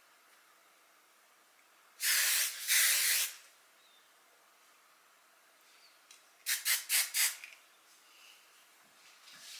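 Aerosol can of Nexxus maximum-hold hairspray spraying onto hair: a loud hiss of just over a second about two seconds in, then four short quick sprays in a row a few seconds later.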